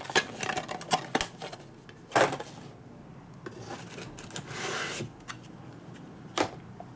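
Cardboard and paper packaging being handled on a table: light taps and rustles, a sharp knock about two seconds in and another near the end, and a longer sliding rustle around four to five seconds in.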